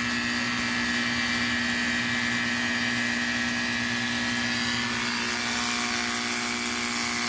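Ryobi One+ 18-volt cordless pressure washer running at full pressure: a steady electric pump-motor hum under the constant hiss of the water jet spraying onto a carpet floor mat.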